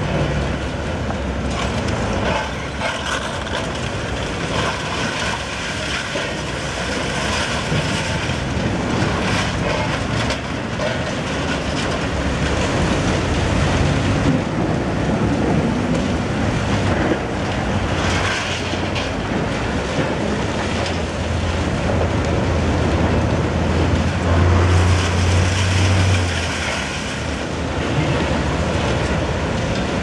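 Hitachi Zaxis demolition excavator at work: its diesel engine and hydraulics run with a steady low hum, under continuous clattering and grinding of broken concrete and rebar in its grab. The engine hum grows louder for a couple of seconds near the end.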